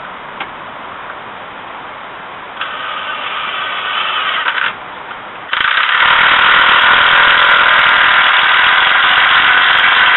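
Cordless drill driving a long screw into a log brace: the motor whines in a run of about two seconds starting about two and a half seconds in, pauses briefly, then runs again louder and steadily for about five seconds as the screw is driven home, stopping at the end.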